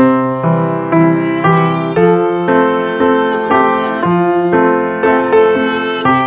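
Piano playing a hymn tune in C major over a simple chord accompaniment, struck in a steady beat of about two strikes a second: a bass note followed by three hits of the other chord notes in each bar, the 'oom-pah-pah-pah' pattern in four-four time.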